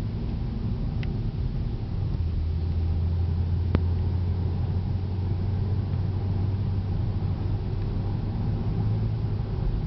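Cabin sound of a 2011 Cadillac CTS-V coupe cruising: a steady low drone from its 6.2-litre supercharged V8 and the tyres, running smoothly, the drone deepening about two seconds in. A light click about a second in and a sharper one a little later.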